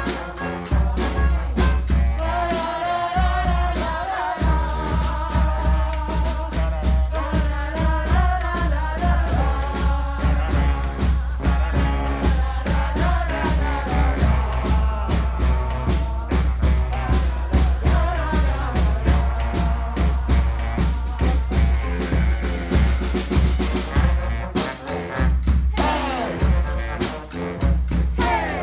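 Live street brass band playing an upbeat song: horns carry the melody over a drum kit and a heavy, steady bass line.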